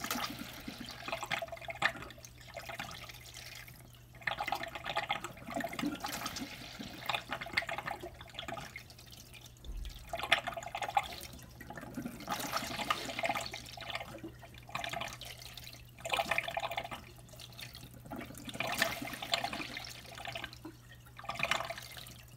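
Water trickling and splashing into the reservoir tote of a homemade hydroponic system from its tube-fed feed pipe, in irregular surges every second or two, over a steady low hum.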